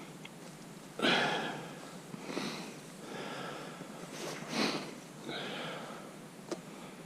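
A person sniffing and breathing through the nose in about five irregular, short breaths, the loudest about a second in.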